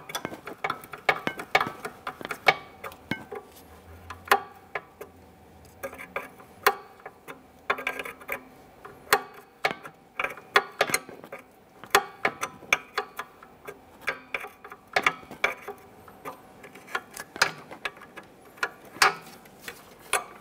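Irregular sharp metal clicks of a 10 mm open-end wrench being set on and swung against a brake line fitting, unscrewing it from a rear brake hose a short turn at a time.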